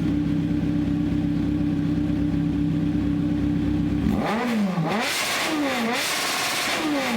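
Kawasaki Z900's inline-four engine through SC Project steel headers with no dB killer, idling steadily and then blipped several times from about four seconds in, each rev rising and falling quickly; a loud racket.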